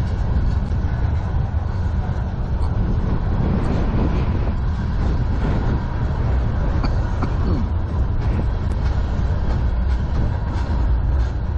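CN manifest freight train's covered hoppers and tank cars rolling past: a steady, heavy rumble of steel wheels on rail, with scattered clicks from the wheels and couplings.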